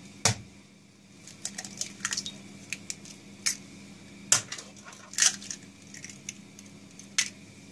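Two eggs cracked into a glass bowl: sharp taps of eggshell against the glass and the small crackle of shells being pulled apart, with the egg dropping in. A faint steady hum lies underneath.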